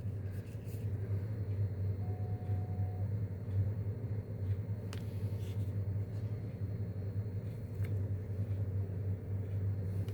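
Steady low background hum, with two faint clicks partway through.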